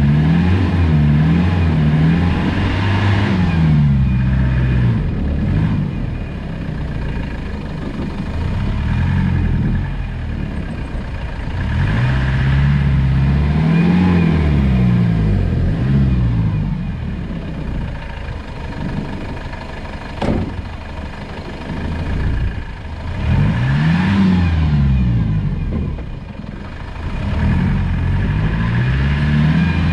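Land Rover Discovery 200 Tdi's four-cylinder turbodiesel engine working off-road, its revs rising and falling again and again every few seconds. A single sharp knock about twenty seconds in.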